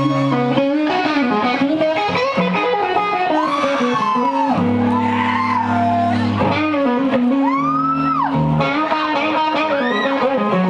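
Live rock band's amplified electric guitars playing the opening of a song, with sustained notes and twice a long note that slides up and back down.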